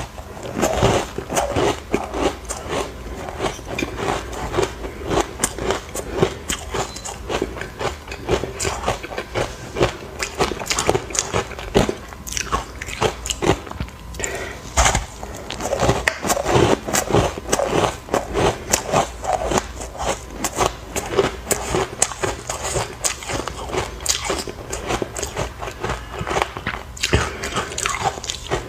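Chunks of ice being bitten and chewed close to the microphone: a continuous run of sharp, irregular crunches and cracks.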